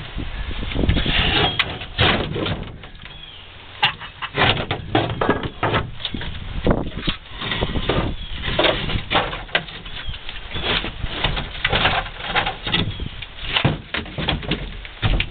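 A metal hand tool prying, knocking and scraping at an old plywood boat transom, with wood creaking and splitting in irregular, rapid strikes. There are a few short squeaks about a second in, and a brief lull around the third second.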